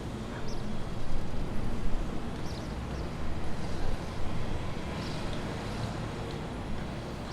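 Steady low rumble of outdoor traffic noise, with a few faint, short high chirps.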